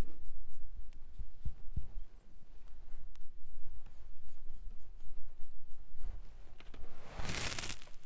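Small paintbrush stroking paint onto laser-cut wooden pieces: soft scratchy strokes with a few light taps. About seven seconds in, a louder rustle as the brown paper on the table is disturbed.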